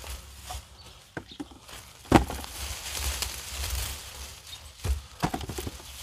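Hands digging by hand through loose garden soil and weeds to turn up potatoes. Rustling and scraping, broken by a few sharp knocks, the loudest about two seconds in and two more near the end.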